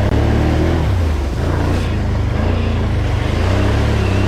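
Off-road vehicle engine running steadily, its pitch wavering slightly up and down.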